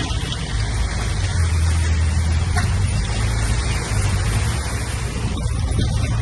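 Diesel engine of a heavy earthmoving machine running steadily: a continuous deep drone with a noisy, rattling top.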